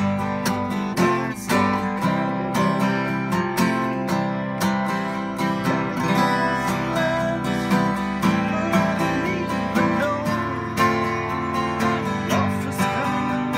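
Acoustic guitar strummed in a steady rhythm of chords.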